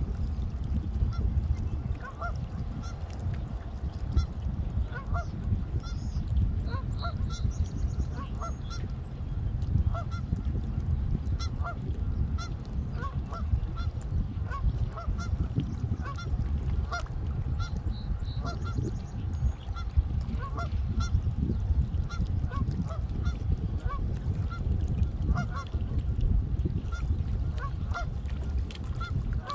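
Geese honking, many short calls scattered throughout, over a steady low rumble.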